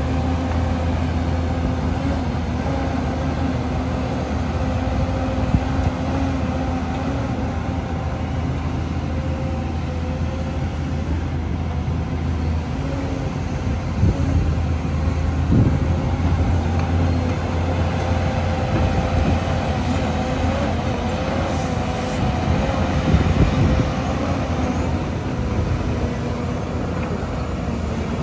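Hyundai HX300L tracked excavator's Cummins diesel engine running steadily under hydraulic load as the upper structure slews round, a steady higher whine over the low engine note. A few short clunks come about halfway through and again later.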